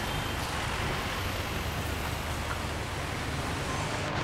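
Motorbike riding through city traffic, heard from the pillion seat: a steady rush of wind and road noise over the low running of the engine.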